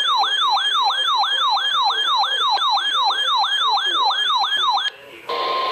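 Electronic emergency-alert tone with a siren-like yelp: a loud tone sweeping down in pitch, about four sweeps a second, that cuts off near the end. A hiss of static follows, with a short steady tone.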